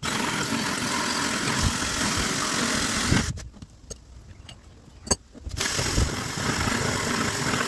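A power drill cutting a hole runs in two long bursts of about three seconds each, with a pause of roughly two seconds between them.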